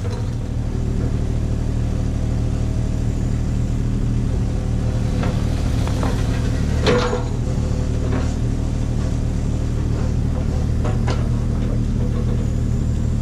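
Kubota U27-4 mini digger's diesel engine running steadily, with a few knocks and clatters of stone and brick as its bucket works at the wall, the loudest about seven seconds in.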